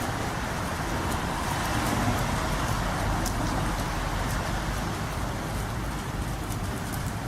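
Steady hum of distant highway traffic, with light rain adding faint scattered drip ticks.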